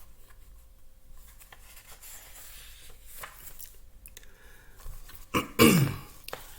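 Soft paper rustling and small handling clicks as a picture book's page is turned, then near the end a short, loud vocal sound with falling pitch from the reader.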